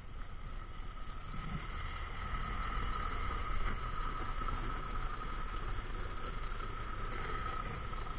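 A vehicle engine running steadily, with a low rumble and a steady high whine over it.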